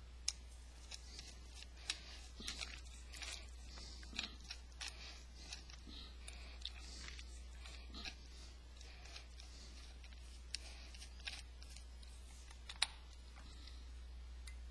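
Small screwdriver turning the screws of a Nikki carburetor's spring-loaded cover, giving scattered light metal clicks and scrapes. The screws are not biting in. A steady low hum runs underneath.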